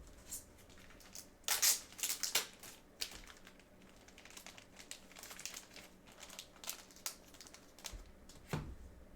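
Plastic wrapping crinkling and tearing, with a loud burst of rustling about a second and a half in and scattered smaller rustles and ticks after it.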